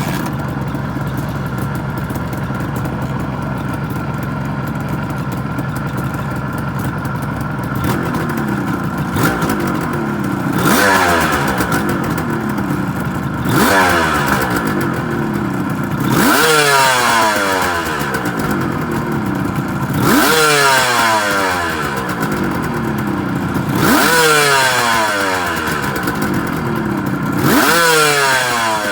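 Suzuki GT380's air-cooled two-stroke three-cylinder engine, freshly overhauled, idling steadily, then revved repeatedly from about eight seconds in: roughly every three to four seconds the revs climb quickly and drop slowly back to idle. The engine runs smoothly with no abnormal noise.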